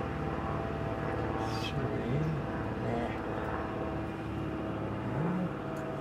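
A vehicle engine idling with a steady hum, with faint low voices now and then.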